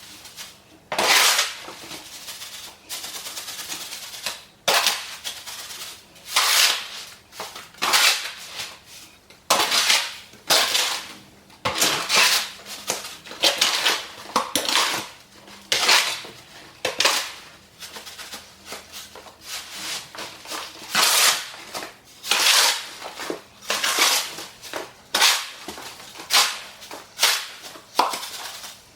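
Wet mortar mix being mixed by hand: a tool scraping and chopping through the gritty mix in its container, in short strokes about one every second or so.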